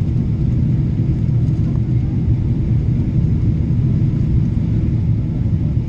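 Steady low rumble of an airliner's engines and rushing air, heard from inside the passenger cabin during descent.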